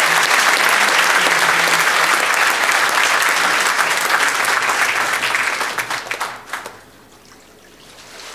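Congregation applauding loudly, a dense patter of many hands clapping that dies away about six to seven seconds in, with a few last claps.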